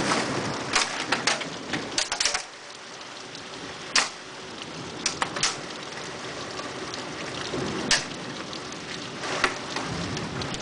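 Heavy rain with hailstones, a steady hiss broken by scattered sharp clicks and taps as the stones hit, the strongest about four and eight seconds in.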